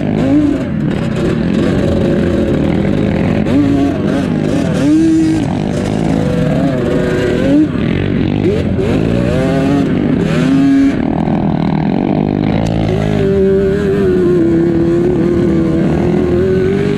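Quad (ATV) engines revving up and down as the quads ride over sand dunes. In the last few seconds one engine holds a nearly steady high note.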